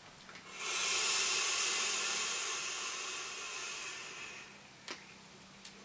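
A long draw on a sub-ohm vape with a 0.38-ohm coil fired at 42 watts: a steady hiss of air pulled through the atomiser for about four seconds, fading toward the end. Two short clicks follow near the end.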